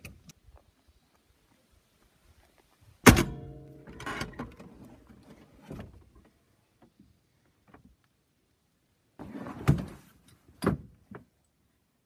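Seatbelt hardware on a 1959 Corvette C1 being handled. About three seconds in there is one sharp metallic clank that rings briefly, followed by a few light clicks. Near the end come two more dull thunks.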